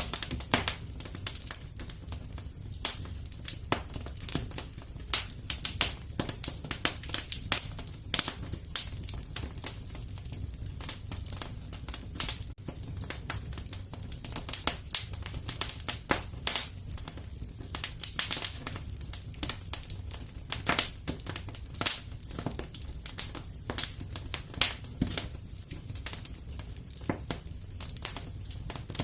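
Wood fire crackling in a fireplace: frequent irregular sharp pops and snaps over a steady low background of the burning fire.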